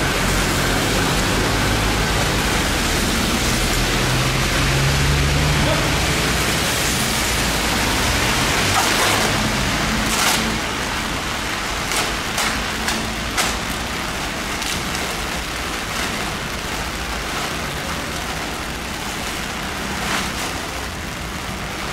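Steady hiss of rain falling on a wet street. A vehicle's low engine rumble passes during the first several seconds and fades about seven seconds in. From about nine seconds in come a few sharp crackles and rustles of a woven-plastic cover being pulled off a crate.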